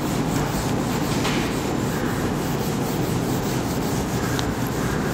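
Whiteboard eraser wiping marker writing off a whiteboard: a steady, continuous scrubbing.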